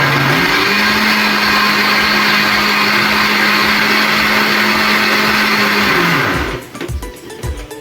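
Electric kitchen blender running steadily, its motor pitch stepping up about half a second in, then switched off about six seconds in and winding down to a stop.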